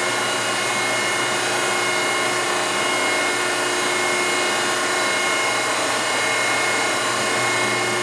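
Selco baler's motor and hydraulic pump running steadily while the ram is driven inward in manual mode: a continuous even hum with a steady whine.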